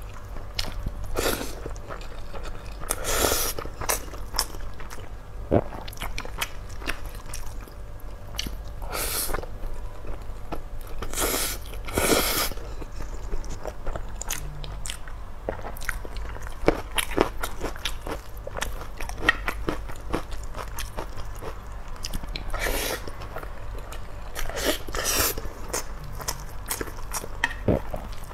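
Close-miked eating: a person biting and chewing a mouthful of rice mixed with braised meat, with a plastic spoon scraping and stirring in a steel pot. Short clicks and mouth sounds run throughout, with a few louder scraping bursts.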